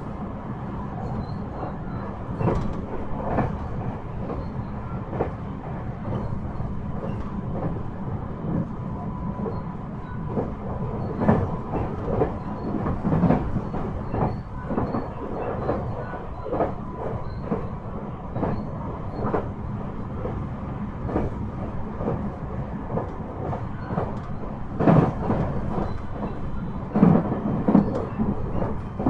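JR West 223 series 5000 electric multiple unit running along the line, heard from on board: a steady rumble of wheels on rail with irregular clacks over rail joints, and a few louder clatters in the middle and near the end.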